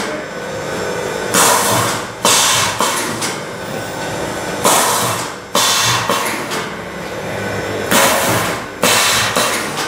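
A 4x2 plastic-cup water filling and sealing machine cycling, filling eight cups per stroke. It repeats a pair of sudden hissing, clacking strokes about every three and a half seconds over a steady machine hum.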